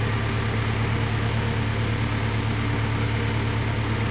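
Small park train's engine running with a steady low hum as the train rolls along the track.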